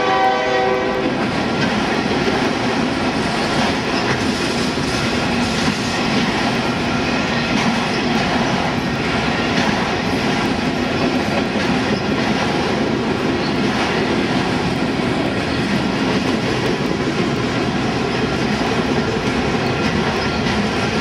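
Freight train of autorack cars rolling past, with a steady clatter and rumble of steel wheels on the rails. The locomotive's horn chord sounds at the start and cuts off about a second in.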